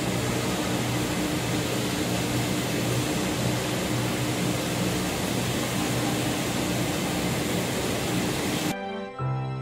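Steady rushing ventilation noise with a low hum, the room sound of a large indoor badminton hall. It cuts off abruptly near the end.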